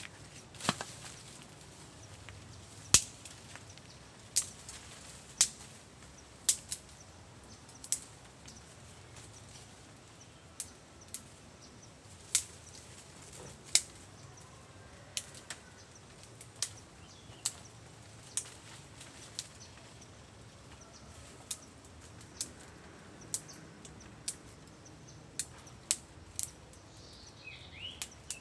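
Dry bamboo twigs and leaf litter snapping and popping in sharp, separate cracks at irregular intervals of roughly one a second, as a small fire of bamboo litter burns and is tended by hand. A bird gives a short chirping call near the end.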